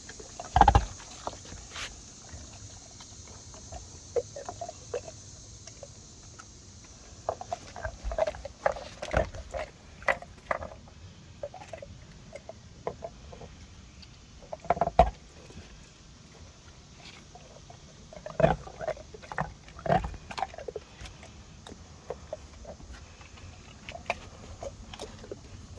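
Dogs bobbing for craft ice cubes in water, with scattered short, irregular splashing and knocking noises from their muzzles in the water and on the ice.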